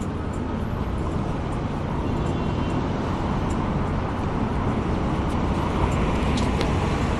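Steady road traffic noise on a city street, a continuous low-heavy rumble with no break.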